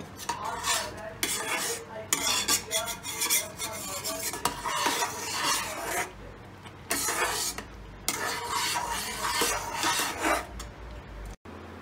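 A flat metal spatula stirs and scrapes thick almond halwa, cooking in ghee, around a pan in repeated strokes. The stirring breaks off briefly about six seconds in and stops near the end.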